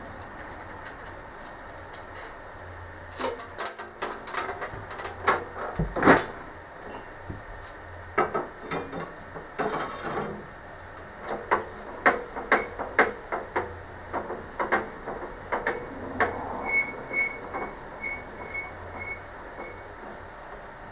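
Irregular knocks and clatter of metal stock and tools being handled and set down at a bench. Near the end comes a run of about eight short, high electronic beeps, two or three a second.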